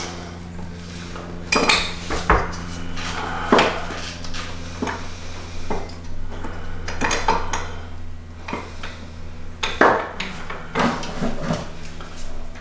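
Irregular clinks, knocks and scrapes as a roof crossbar and its feet are set onto the car's roof mounts, with the strongest knock about ten seconds in, over a steady low hum.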